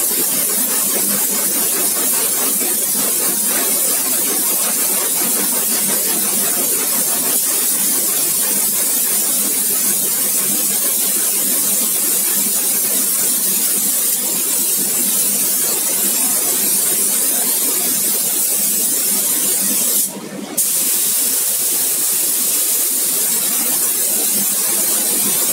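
Handheld compressed-air spray gun hissing steadily as it sprays a mist onto a finned metal part, with a brief break about 20 seconds in when the spray stops and restarts.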